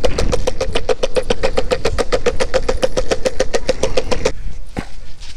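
Longboard wheels rolling fast over a concrete sidewalk: a rapid, even clatter of about ten beats a second over a steady hum. It stops abruptly about four seconds in, leaving a few light scuffs and clicks.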